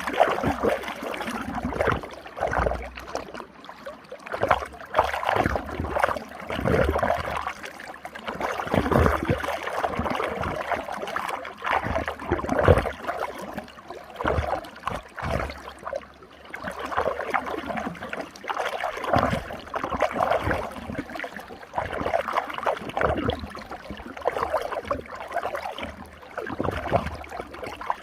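Running water swirling in a whirlpool, gurgling and splashing in uneven surges.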